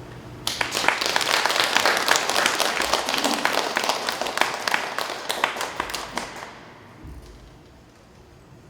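Audience applause starting suddenly about half a second in, dense clapping that fades away after about six seconds, following the end of a flute piece.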